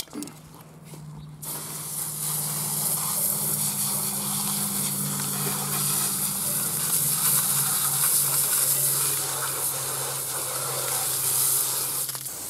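Pressure washer spraying water onto the underside of a riding mower's deck, blasting off caked grass and dirt. The hiss of the spray comes with a steady low hum underneath; it starts about a second and a half in and cuts off just before the end.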